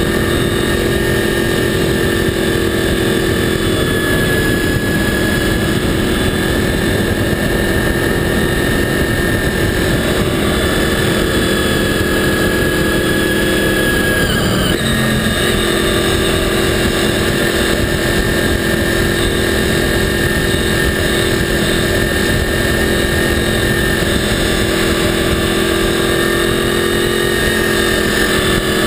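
Honda VFR800 motorcycle's V4 engine running hard at steady high revs under way, with wind and road noise. The engine note breaks and dips briefly about halfway through, then picks up again.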